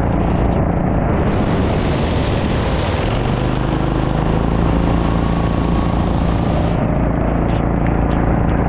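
Go-kart engine running steadily at part throttle as the kart drives around a wet track. A broad hiss joins it a little over a second in and cuts off suddenly about three quarters of the way through.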